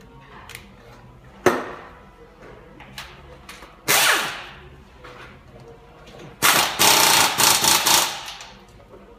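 Impact wrench hammering bolts while a transmission is bolted up under a lifted car: a short burst about a second and a half in, another at about four seconds, then a longer run of rapid hammering lasting nearly two seconds.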